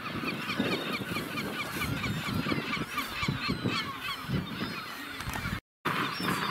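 Magellanic penguins calling: a long braying run of rapid honking notes, several a second, which breaks off in a brief dropout about five and a half seconds in.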